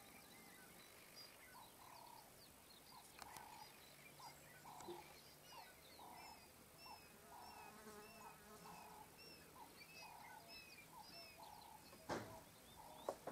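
Faint birdsong: one bird repeats a short, low note about twice a second while others give high, falling chirps. A short thump comes near the end.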